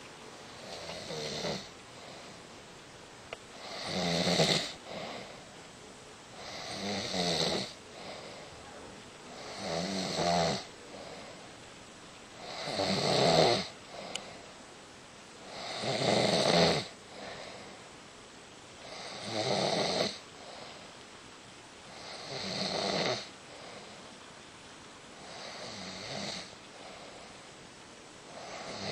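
Snoring in a slow, regular rhythm, one snore about every three seconds, each lasting about a second.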